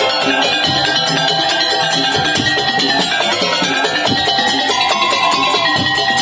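Madurese tong-tong ensemble music: fast, steady beating of percussion with held melodic notes over it.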